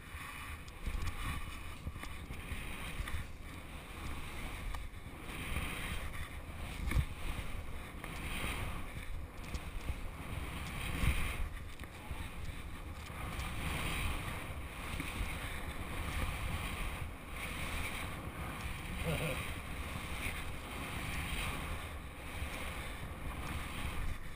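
Skis swishing through fresh powder snow in a run of linked turns, the hiss swelling and fading with each turn, over wind rumbling on the microphone.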